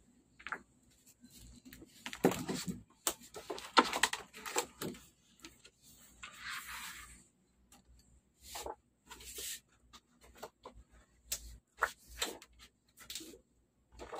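Thin plastic optical film sheets from a 55-inch curved Samsung LED TV's backlight rustling and crinkling as they are lifted and handled, with scattered light clicks and taps and a longer rustle about six seconds in.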